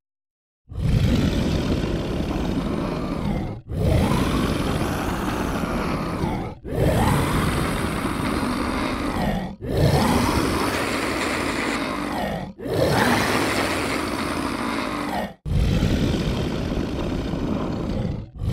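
Monster roars generated by the Dehumaniser real-time voice processor, a recorded voice pitch-shifted and roughened through its 'Beast' preset. About six roars of around three seconds each follow one another with short breaks between them.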